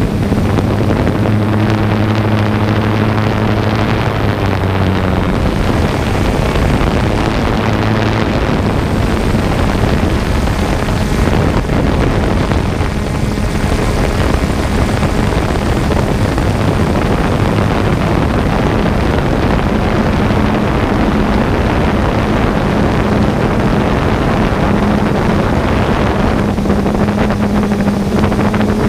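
3DR Solo quadcopter's electric motors and propellers whirring steadily, heard from the GoPro riding on the drone, a steady hum under a rush of wind noise on the microphone. A lower tone in the hum fades out after several seconds.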